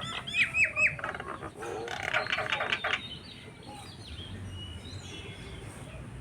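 Birds calling: three loud, quick arched whistled notes, then about a second of harsh rattling chatter, then fainter thin whistles.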